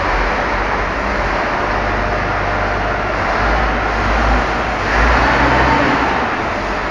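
Tour coach's diesel engine running close by: a loud, steady low rumble under a dense hiss.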